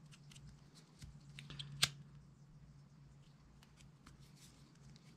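Faint handling sounds: fingers rustling and pressing on nylon paracord and a lighter in the hand, with scattered small clicks and one sharper click about two seconds in, over a faint steady low hum.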